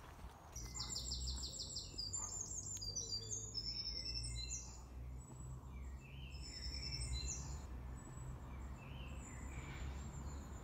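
Songbirds singing: bursts of quick, high-pitched chirps and trills, one after another, over a low steady rumble.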